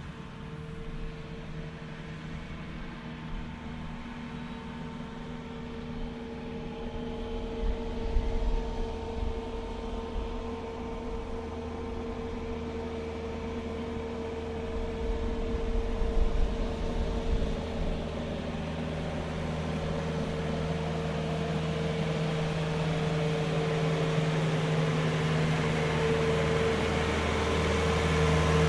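Small tractor engine running steadily while it tows a track groomer over sand, growing louder as it comes closer, with a couple of brief low bumps.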